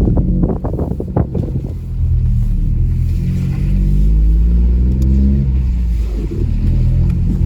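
Ford Focus 1.0 EcoBoost's turbocharged three-cylinder petrol engine on the road. Its pitch climbs steadily under acceleration from about two seconds in, then drops near the end as the throttle eases. A few short knocks are heard in the first couple of seconds.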